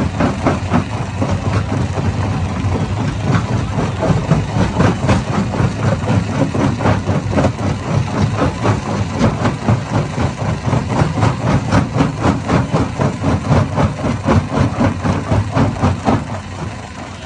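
Stone crusher running under load, rock being broken inside: rapid, irregular clattering knocks over a steady low machine drone. The clatter eases off near the end, leaving the drone.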